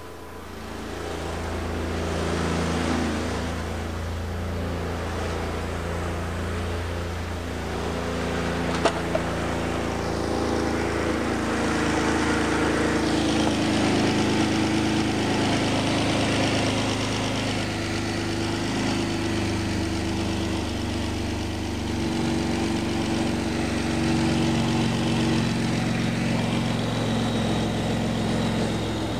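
Turbocharged 3.6L Jeep Wrangler V6 idling steadily as it warms up after first startup with a newly installed turbo kit, running until the thermostat opens. A single sharp click sounds about nine seconds in.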